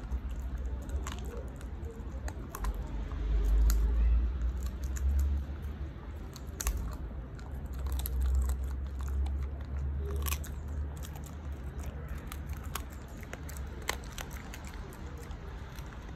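Keeshond puppy chewing a crispy fried chicken foot, with irregular sharp crunches of the crisp skin and small bones between its teeth. Under it a low rumble swells a few seconds in and again near the middle.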